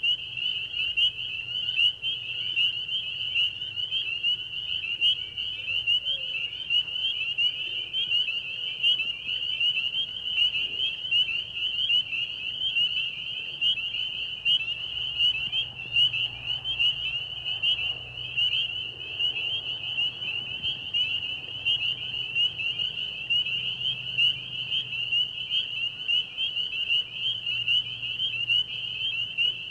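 Crickets chirping: a continuous high-pitched trill that pulses rapidly without a break.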